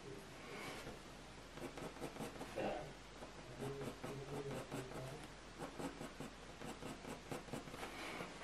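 Graphite pencil scratching quick, short strokes on hot-press watercolour paper, flicking in fine grass strands as a rapid run of light ticks.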